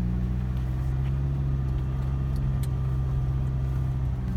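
Car engine running at a steady pitch, a continuous low hum.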